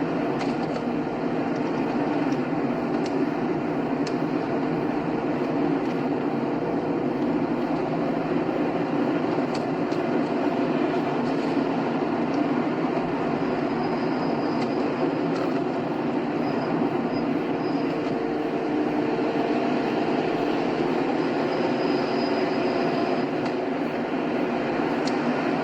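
Car driving along a highway: steady tyre and road noise with engine hum, a few faint clicks and rattles.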